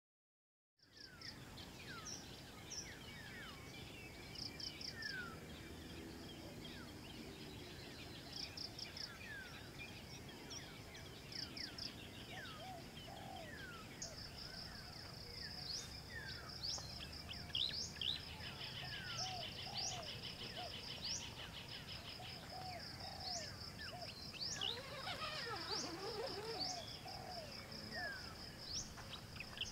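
Outdoor chorus of many small birds, with short rising chirps and lower whistled calls over a steady high insect trill. It starts after about a second of silence.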